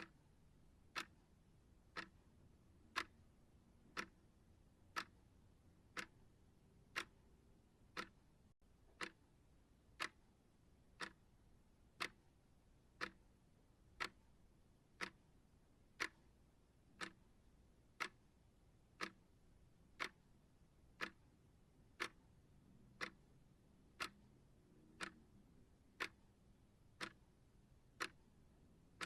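Timer ticking steadily, with one short, sharp tick every second and near silence between the ticks.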